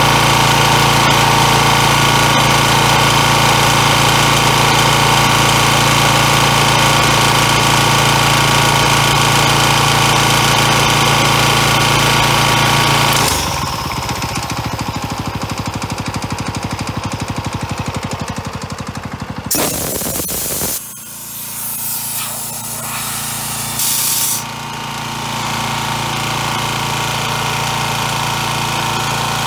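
Anest Iwata L22-10 engine compressor, its 5 hp engine running and pumping air at a steady, loud pace. About halfway through the sound drops as the slow-down function cuts the engine back once the tank is up to pressure. Two short, loud hisses of air follow, and the engine runs on more quietly at the slower speed.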